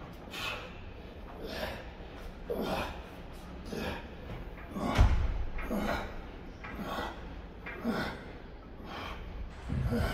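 A man breathing hard during seated cable rows, one forceful breath about once a second in time with his reps. A thump about halfway through is the loudest sound.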